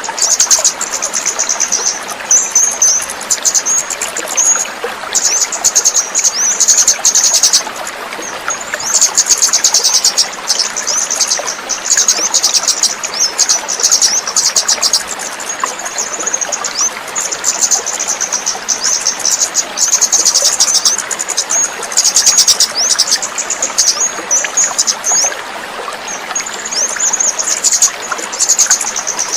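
Kemade songbird singing bursts of high, rapid chirping phrases over a steady background of trickling water.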